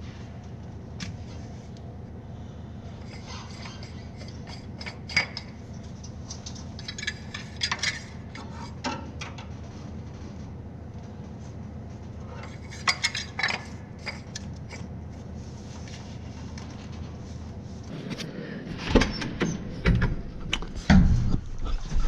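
Scattered light metal clinks and taps from hands working in a machine's engine compartment, over a steady low rumble. Heavier knocks and bumps come near the end.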